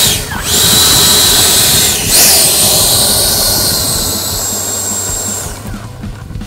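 The 80 mm electric ducted fan of an FMS Futura RC jet runs at high throttle on its takeoff run: a loud, steady rushing whine with a high tone. It rises in pitch about two seconds in, then fades near the end as the jet rolls away.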